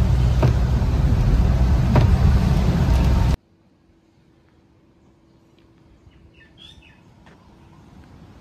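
Moving car's cabin in rain: rain on the windscreen and tyres on the wet road, loud and bassy, with a couple of knocks. It cuts off suddenly after about three seconds to quiet open air, where a bird chirps briefly past the middle.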